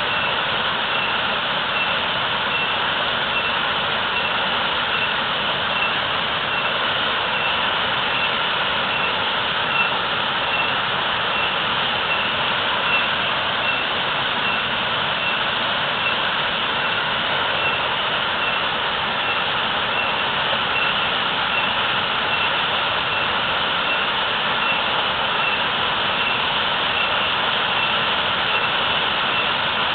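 Waterfall pouring heavily: a steady, unbroken rush of falling water. Under it, a faint high-pitched tone repeats evenly.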